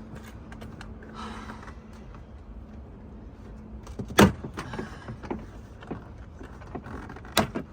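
Plastic retaining clips of a car door trim panel popping loose as the panel is pried off by hand: a rustle, then a sharp snap about four seconds in and another near the end.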